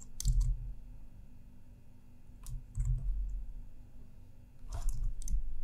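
Scattered clicks and taps of a computer keyboard and mouse at a desk. There are three short clusters, each with a dull low knock: one just after the start, one around the middle, and one near the end.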